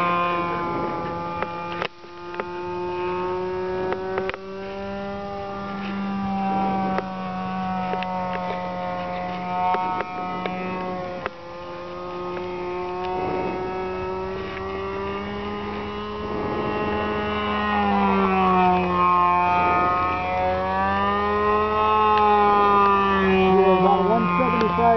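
Engine of a radio-controlled P-51 Mustang model airplane in flight, running at high revs, around 11,000 rpm. It makes a steady buzz whose pitch swells and falls a few times as the plane passes and turns, most clearly in the second half.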